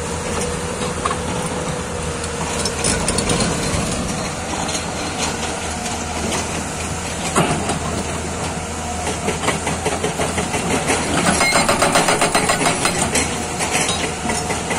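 Hyundai Robex 215L excavator's diesel engine running, with its hydraulic rock breaker hammering on rock. The breaker's rapid, even blows grow louder over the last few seconds, and there is a single knock near the middle.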